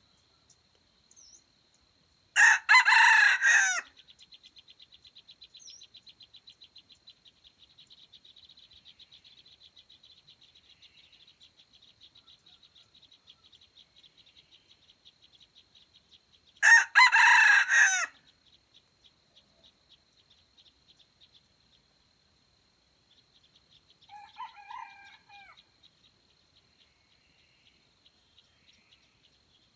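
Red junglefowl rooster crowing twice, each crow about a second and a half long and some fourteen seconds apart, with a softer, shorter call later on. A steady high insect trill runs underneath.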